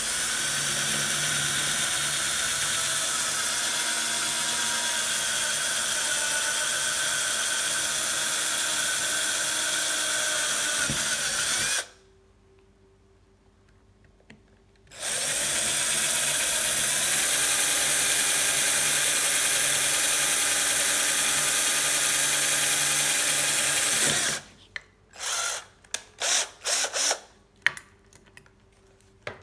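Small electric drill with a 3.2 mm bit running steadily while drilling a hole in a bicycle quick-release skewer. It runs for about eleven seconds, winds down, stops for a few seconds, runs again for about nine seconds, then gives several short trigger blips near the end.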